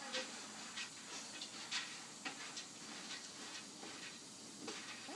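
Irregular soft clicks and ticks, a few a second, over a faint background hiss.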